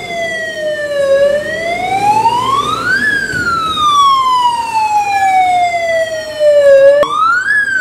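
Tata fire engine's siren wailing loud and close. The pitch slides slowly down to its lowest about a second in, rises to a peak about three seconds in, then falls slowly for about four seconds. It then jumps suddenly back up and starts another rise.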